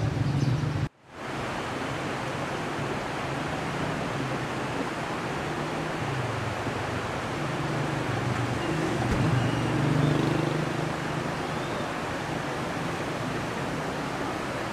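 Swollen river in flood, fast muddy water rushing past in a steady wash of noise. A brief drop-out about a second in breaks it.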